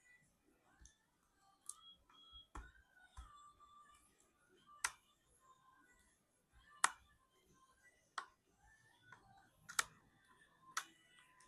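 Thin plastic laptop screen bezel being pried off with a pick, giving sharp, separate clicks, about seven at uneven intervals, as it comes away from the housing.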